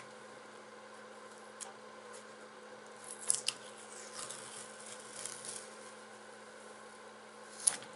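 Faint scratching and crinkling as a vinyl sticker is picked at and peeled off a metal toolbox, in short bouts, with one sharp click near the end.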